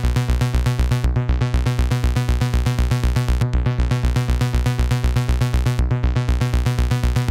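Behringer Neutron oscillator playing a low, steady synth tone through a matrix mixer, pulsing fast and evenly at about six beats a second.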